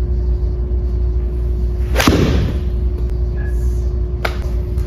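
A golf iron strikes a ball off a hitting mat about two seconds in: one sharp crack, followed at once by a short rush of noise as the ball hits the simulator screen. A steady hum runs underneath, and a lighter click comes near the end.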